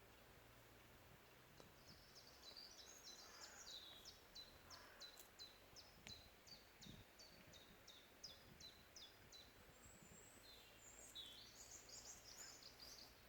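Faint birdsong: a bird repeats a short, high note about three times a second for several seconds. Near the end a quicker, jumbled twittering phrase follows.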